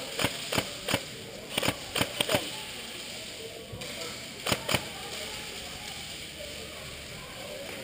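Airsoft guns firing single shots: about ten sharp cracks in uneven groups, most in the first two and a half seconds, with a last pair about four and a half seconds in.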